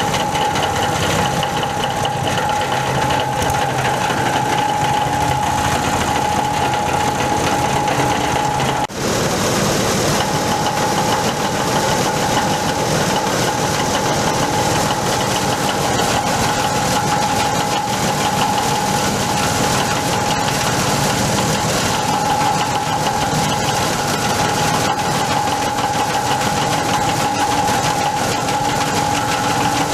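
Foam and fabric shredder machine running steadily: a continuous mechanical drone with a constant whine. The sound drops out for an instant about nine seconds in.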